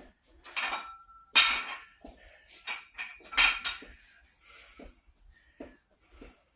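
A short Olympic barbell clanking as it is handled and set down on the floor: a run of sharp metal knocks, the two loudest at about one and a half and three and a half seconds in, each with a brief metallic ring.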